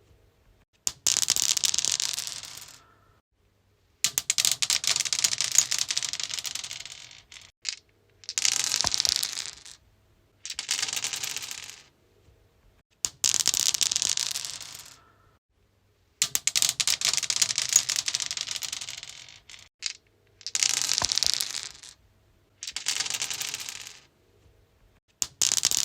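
Dice rolled over and over on a stone surface, each roll a clatter of rapid clicks that tumbles for one to three seconds and dies away, with short silent gaps between rolls.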